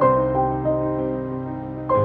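Calm background music: a falling three-note melody repeated over held low notes.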